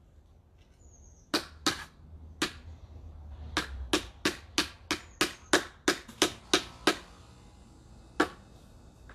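Rubber mallet pounding a privacy-screen panel's stake into the ground. Three separate blows come first, then a quick run of about a dozen strikes at roughly three a second, and one last blow near the end.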